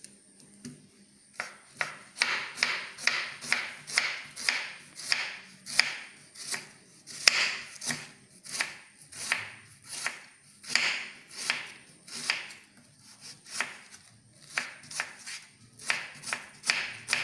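Chef's knife slicing red onions on a wooden cutting board: a steady run of sharp chops, about two to three a second, starting a little over a second in.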